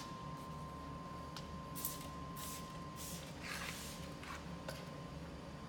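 Trigger spray bottle squirted several times at a truck tire: about four short hissing sprays in quick succession, starting about two seconds in.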